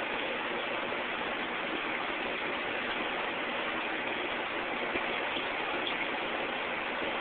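Steady rush of water in a fish tank: aquarium water circulating and bubbling at a constant level.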